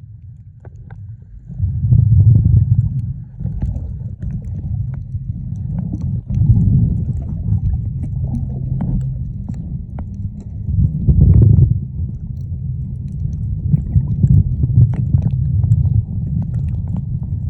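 Muffled underwater sound of the sea heard through a camera held underwater: a low rumble of moving water that swells and fades in surges, with scattered faint clicks.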